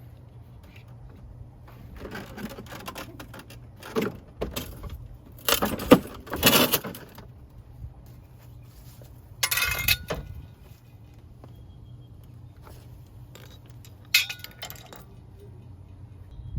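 Metal tools and parts clinking and scraping in several separate bursts, some leaving a brief ring, over a steady low hum.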